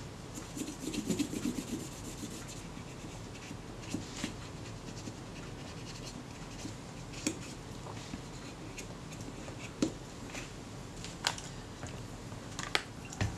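Cotton bud rubbing on the chrome top cover of a Kodak Retina IIIS camera, a quick flurry of scrubbing strokes in the first two seconds, cleaning dirt off the metal. After that come a few scattered light clicks and taps as the metal cover is handled.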